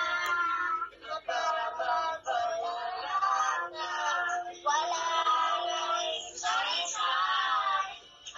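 A young boy singing, heard through a phone's speaker, in phrases of long held notes that bend in pitch, with short breaths between them.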